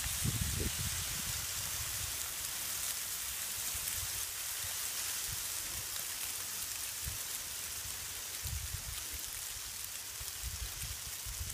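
Steady hiss of heavy rain falling during a thunderstorm, with low rumbles coming and going near the start, about eight and a half seconds in, and near the end.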